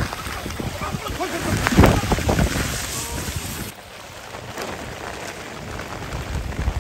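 Muddy monsoon floodwater rushing over rocks in a shallow stream, a steady wash. It is louder and busier for the first few seconds, with people wading and splashing, then settles to the water alone.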